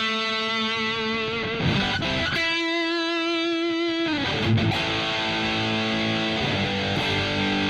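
Ibanez RGAT62 electric guitar through a Boss Katana 100 amp on a boosted, overdriven lead setting: long sustained notes, the second shaken with vibrato, letting a little feedback build, then chords over the last few seconds.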